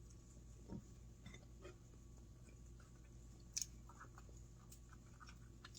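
Near silence with faint mouth sounds of someone biting and chewing a sandwich, and a sharper click about three and a half seconds in.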